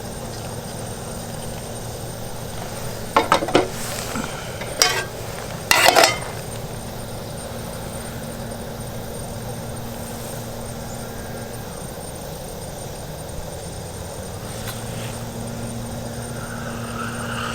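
Metal cookware clinking and scraping a few times, about three, five and six seconds in, over a steady low hum while bread toasts on the heat.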